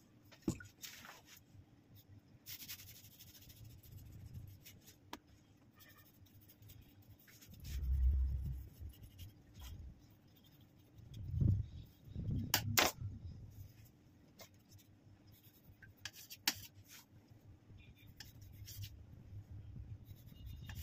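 Long knife sawing and scraping through the crust of a sponge cake, with a few sharp clicks and some dull thumps in between.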